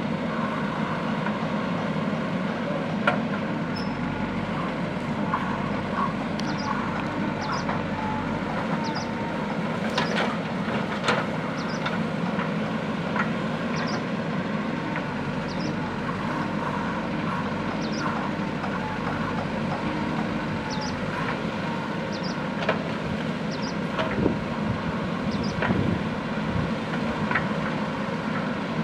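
JCB backhoe loader's diesel engine running steadily, with a few sharp knocks of the machine working.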